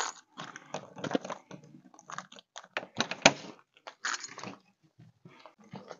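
Irregular clicks, taps and rustling, like things being handled at close range, with a couple of sharper knocks about one and three seconds in.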